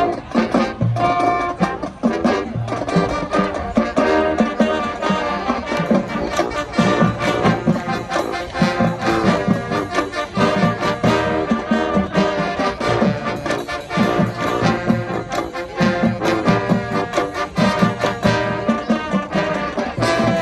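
High school marching band playing, brass section carrying the tune over a steady drum-line beat.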